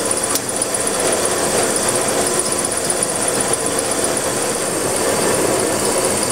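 Accu-Turn brake lathe running, spinning a brake rotor while its cutting bits take a light finishing cut about 2.5 thousandths deep: a steady whir with a thin high whine over it. A single sharp click about half a second in.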